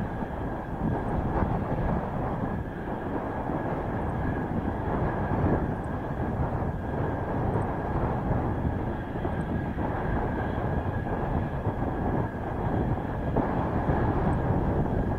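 Mitsubishi F-2 fighter's General Electric F110 turbofan running steadily at ground idle, a low rumble with a thin steady whine over it, mixed with gusting wind on the microphone.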